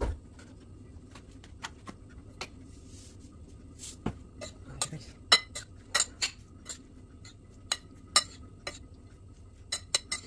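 A utensil clinking and scraping against a ceramic bowl as kinilaw is stirred and tossed in it: irregular sharp clinks, several a second at times, loudest from about five seconds in.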